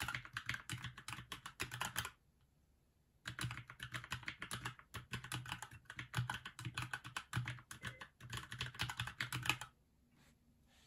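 Fast touch-typing on a Keychron mechanical keyboard: a rapid, continuous run of key clacks with a pause of about a second shortly after the start, stopping about a second before the end.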